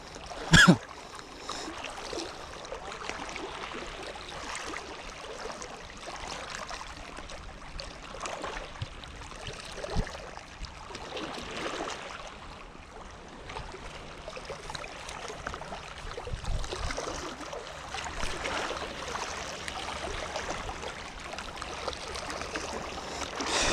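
Seawater lapping and sloshing in a steady wash with slow swells. A short, sharp, loud sound comes about half a second in.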